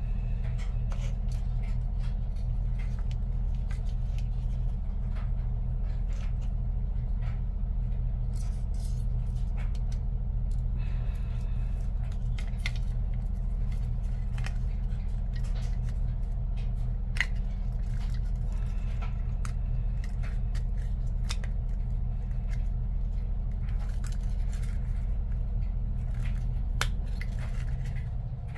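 Scattered small clicks, ticks and snips of hand work on a model locomotive's wiring and small parts, over a steady low hum that drops away near the end.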